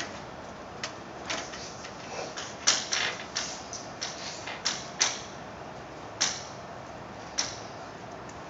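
Chalk writing on a chalkboard: an irregular run of sharp taps and short scratches as strokes are made, the loudest taps about a third of the way in and again just past halfway, over a steady room hiss.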